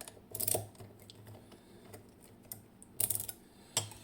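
Sharp metallic clicks and short rattles from a Vachette V DIS+ dimple lock cylinder being handled and worked with its key, with a cluster about half a second in and another around three seconds in.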